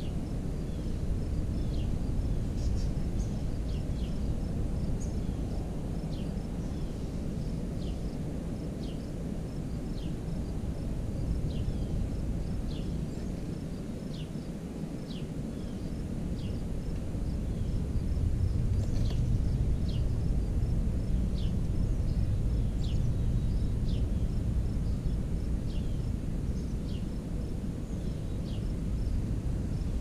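Outdoor ambience dominated by a steady low rumble that grows louder about halfway through. Over it, short high falling chirps repeat roughly once a second, and a faint steady insect trill runs underneath.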